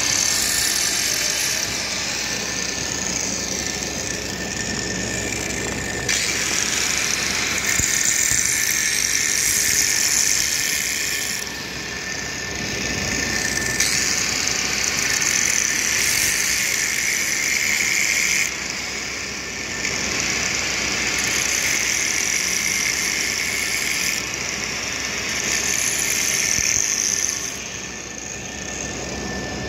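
Angle grinder grinding the weld on a 2-inch steel pipe joint, running in long stretches of several seconds with brief dips in between.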